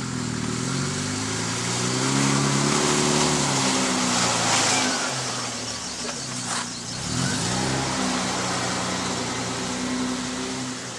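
Toyota LandCruiser 70-series four-wheel drive driving on snow close past, its engine note climbing as it pulls through the first few seconds. The note is loudest as it passes nearest, drops briefly about six and a half seconds in, then picks up and holds steady.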